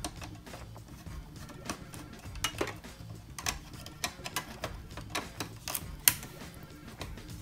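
Light, irregular metal clicks and ticks of a small screwdriver working the tiny screws that hold a PS3's network/Bluetooth board, as the screws are backed out and handled, with a sharper click a little after six seconds in.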